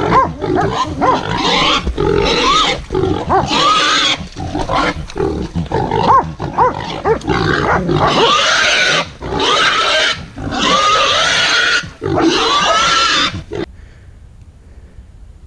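Wild boar squealing in long, loud shrieks again and again, with hunting dogs barking and growling at it close by. The din cuts off suddenly near the end.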